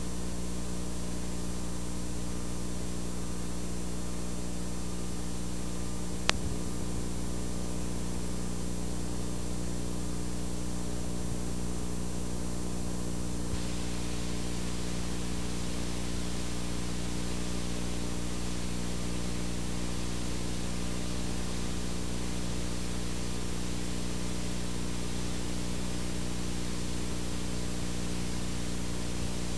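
Steady electrical hum with hiss from a videotape transfer running past the end of the recording. A single click about six seconds in; the hiss grows louder about fourteen seconds in, where the tape runs blank.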